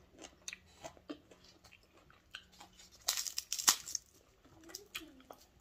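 Close-up eating sounds: chewing with small wet mouth clicks, and a short crackly tearing burst about three seconds in as a piece of pork chop is pulled apart by hand.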